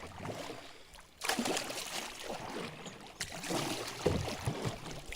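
Water splashing and trickling around a small rowed boat or kayak, with some wind noise.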